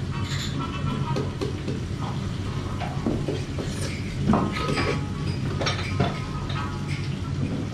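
Restaurant tableware clatter: ceramic bowls, plates and chopsticks clinking and knocking now and then, the sharpest about halfway through, over a steady low hum.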